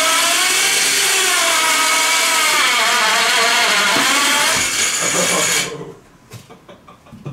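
Harbor Freight electric winch motor driving the go-kart's chain in reverse, pushing the kart backwards up a slight incline and over a lip. It runs with a loud whine whose pitch sags and recovers under the load, then cuts off suddenly about six seconds in, followed by a few faint clicks.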